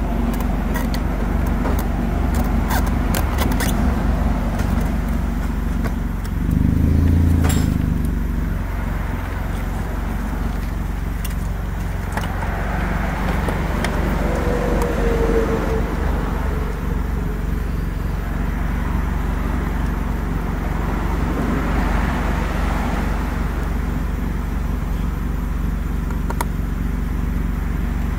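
Hands unplugging wiring connectors and handling the plastic door panel of a Chevrolet Malibu: scattered sharp clicks in the first few seconds, over a steady low hum that swells briefly for about a second and a half about seven seconds in.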